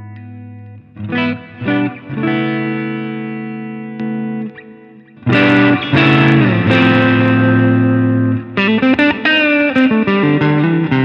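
Sterling Majesty X electric guitar on its bridge pickup, clean tone, playing ringing chords and single notes. About five seconds in a boost pedal kicks in: the guitar turns much louder and brighter, one chord slides down in pitch, and the boosted clean signal drives the audio interface into clipping.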